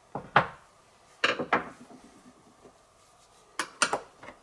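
A small metal can of Bondo body filler being handled on a wooden workbench and its lid worked open: a few sharp metallic clinks and knocks in three short clusters.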